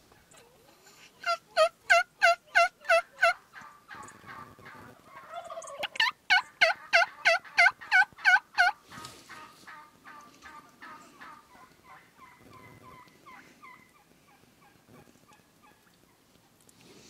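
Wild turkey yelping: two loud runs of about eight evenly spaced notes, about four a second, followed by softer, quicker calling that fades out.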